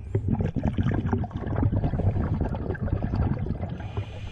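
Underwater noise picked up by a diving camera: a muffled low rumble with dense crackling all through, easing off near the end.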